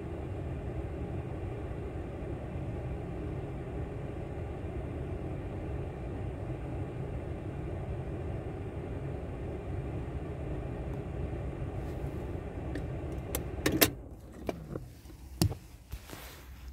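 Car engine idling steadily, heard from inside the cabin. About fourteen seconds in it stops after a burst of clicks, and a few more clicks and knocks follow.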